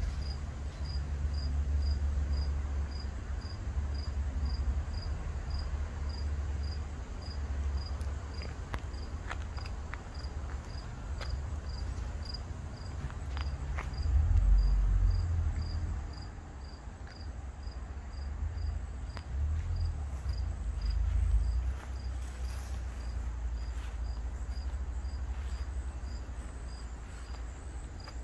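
A cricket chirping steadily at about two high chirps a second, over a low rumble that swells twice.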